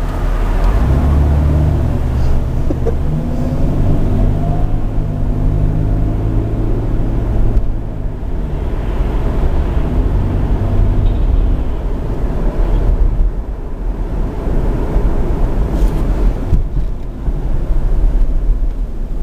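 Jeep Grand Cherokee heard from inside the cabin while driving: the engine note is strong and rises a little a few seconds in as the vehicle picks up speed, then settles under a steady rumble of road and tyre noise.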